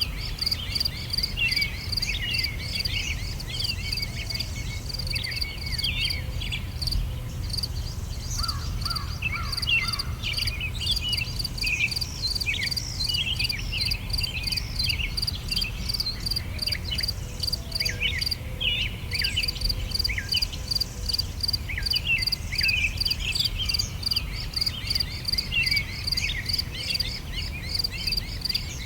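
Summer outdoor ambience: several songbirds singing in short chirps and quick trills, over a steady, rapidly pulsing insect chirp and a low, even rumble.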